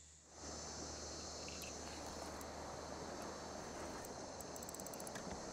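Insects chirring steadily over an even, steady rushing noise, with a brief run of fast high ticks near the end.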